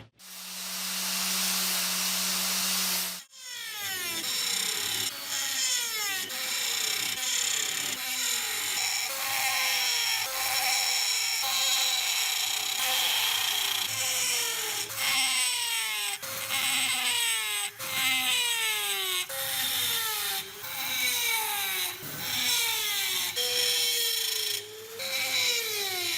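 Power tool running against a workpiece. A steady hum for the first three seconds or so, then a string of repeated whines that fall in pitch, roughly one a second.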